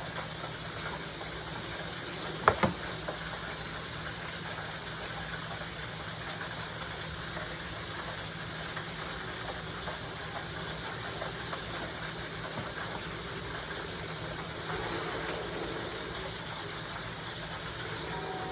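Squid pieces frying in hot oil: a steady frying noise with a faint low hum under it. One sharp knock comes about two and a half seconds in.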